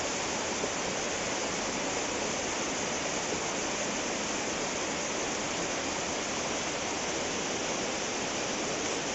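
Steady rush of water from a mountain stream cascading over rocks.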